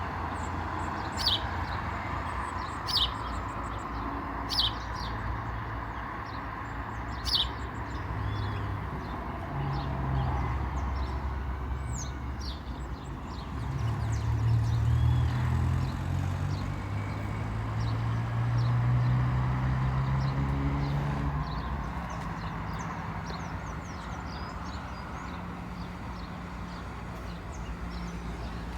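Birds chirping in short sharp calls over a steady low hum. A motor vehicle's engine grows louder and rises in pitch in the middle, then fades.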